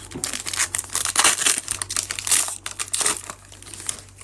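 Foil wrapper of a Panini Prizm baseball card pack crinkling as it is torn open and the cards are pulled out, a dense run of rapid crackles, loudest in the middle.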